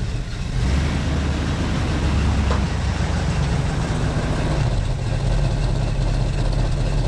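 An engine idling steadily, with a low, even drone.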